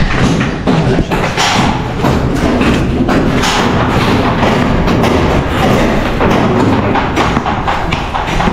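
Footsteps thudding on a bare concrete floor and concrete stairs, with repeated knocks, over background music.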